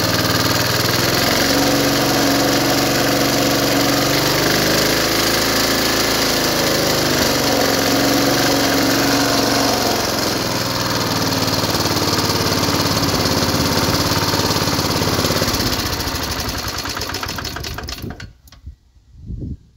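1976 Rover Prince 19 lawn mower's small single-cylinder engine running after a cold start, its note wavering a little; the engine is tired, with piston rings the owner reckons are past it. It slows and stops near the end.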